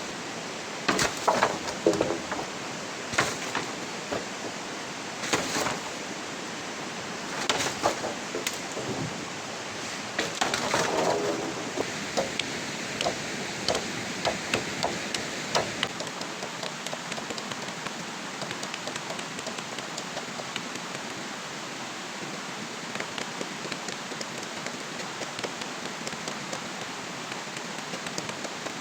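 Steady rain falling, with a series of sharp knocks and short cracking clusters during the first half that then stop, leaving only the rain.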